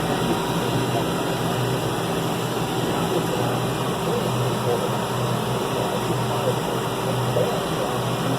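John Deere 6105M tractor's four-cylinder diesel engine running steadily under way, heard from inside the cab, with an even hiss over the engine hum.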